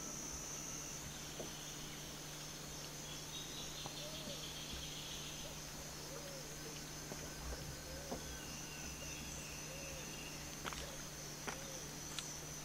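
Amazon rainforest dawn chorus: a steady high-pitched insect drone, with a pulsing insect trill in the first half and an animal repeating a short low call about every second and a half.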